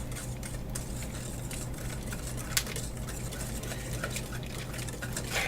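Scattered light taps and clinks of kitchen utensils and dishes being handled, with one sharper click about two and a half seconds in, over a steady low hum.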